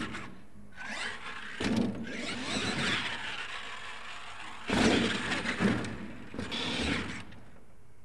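Radio-controlled monster truck on a dirt track, its motor revving in bursts as it jumps, with a sudden loud landing about five seconds in.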